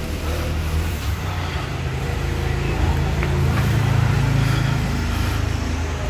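Low, steady rumble of a motor vehicle's engine, swelling to its loudest a little past the middle and easing near the end.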